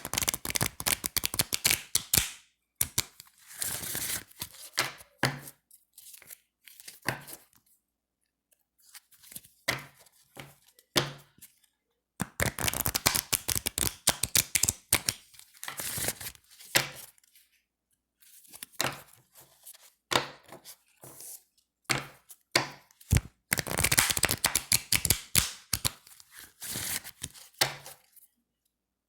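A deck of thin, slick playing cards being shuffled by hand. Rapid fluttering clicks come in bursts with short pauses between them, the longest runs near the start, in the middle and near the end.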